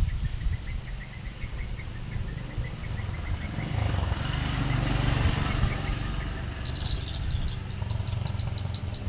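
Volvo six-cylinder diesel engine running steadily with a low rumble that swells a little in the middle. Birds chirp in quick repeated notes near the end.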